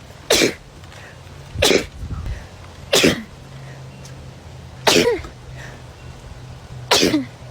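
A person sneezing five times in a row, one to two seconds apart. Each sneeze is a short, sharp burst whose voiced cry drops in pitch.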